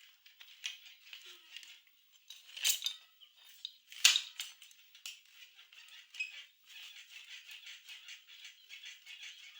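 Yamaha Vixion's rear swing arm and suspension being pumped up and down by hand, giving faint metallic squeaks and clinks, with two sharper clinks about three and four seconds in and a fast regular squeaking of about three strokes a second near the end. This is a test of whether the 'cit cit' squeak from the swing arm is still there after the fix.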